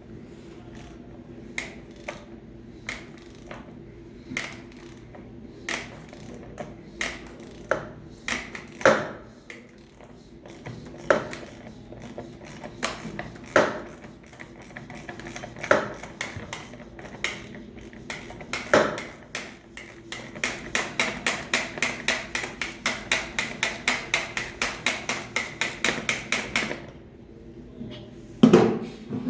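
Ratchet with a 36 mm socket unscrewing the oil filter on a Detroit DD13 diesel engine: scattered single clicks, then about two-thirds of the way in a quick even run of ratchet clicks, about five a second, for several seconds, stopping suddenly.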